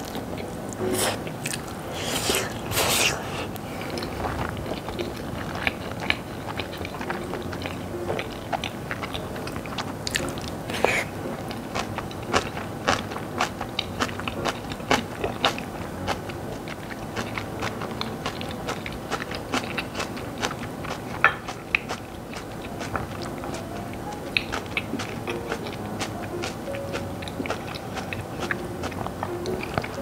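Close-miked mouth sounds of a person eating Chapagetti noodles: a few slurps, then chewing with many small wet clicks throughout. Soft background music plays underneath.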